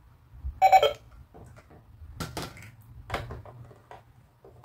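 Hard plastic toys clattering: a toy basket of plastic play food and a toy cash register's scanner being handled and set down. One loud, short clack with a brief ring comes about half a second in, followed by lighter plastic knocks and clicks.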